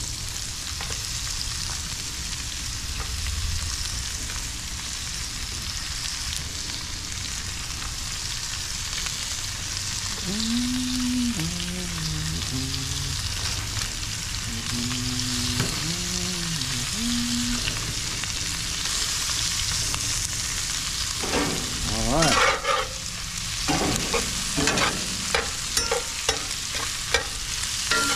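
Frog legs frying in hot butter and oil on a grill, a steady sizzle. Twice around the middle a short low pitched sound rises and falls, and a run of knocks and clatter comes in the last several seconds.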